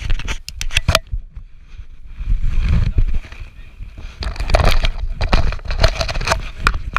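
Handling noise on a helmet-mounted action camera: a gloved hand and clothing rubbing, scraping and knocking against the camera and helmet peak. A run of sharp clicks comes first, then after a short lull a longer stretch of rubbing and knocks.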